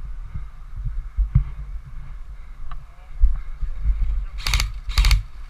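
Low thudding of footsteps and gear movement on a body-worn camera, then two short bursts of airsoft gunfire, one about four and a half seconds in and another half a second later.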